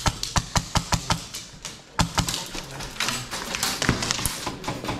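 Airsoft rifles firing in quick semi-automatic strings: sharp snapping shots, several a second.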